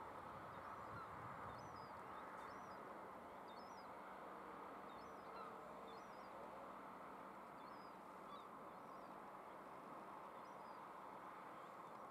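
Faint outdoor ambience: a steady low hiss with scattered faint, short high chirps of small birds every second or so.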